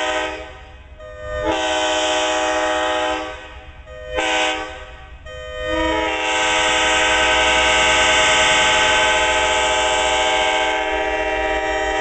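Nathan K5LA five-chime air horn on the arriving diesel passenger locomotive. A blast ends about half a second in, then comes a long blast, a short one, and a final long blast held to the end: the long-long-short-long grade-crossing signal. A low rumble from the train runs underneath.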